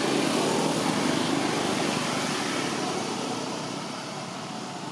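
A passing motor vehicle: steady engine and road noise, loudest at the start and fading away over the next few seconds.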